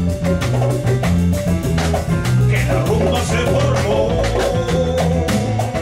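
A live Latin band playing an instrumental passage: a prominent electric bass line and steady, busy percussion, with a lead melody wavering in vibrato over them.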